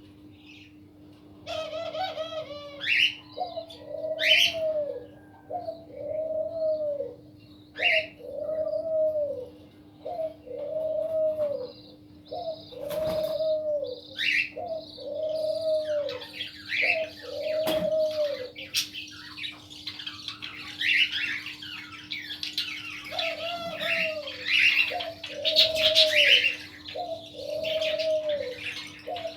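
A dove cooing over and over, a short arched coo roughly every second, with a pause past the middle. Over it, small birds chirp and chatter, getting busier in the second half. A steady low hum runs underneath.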